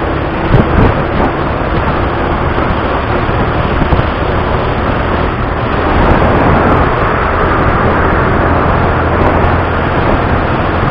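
Motorcycle riding at highway speed: wind rushing over the microphone, with the engine's steady low hum underneath, a little louder about six seconds in.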